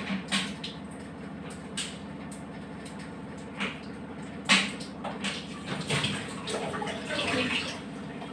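Steel pots, a plate and a lid being handled on a kitchen stove: a few light knocks and clinks, the loudest about four and a half seconds in, over a steady low hum.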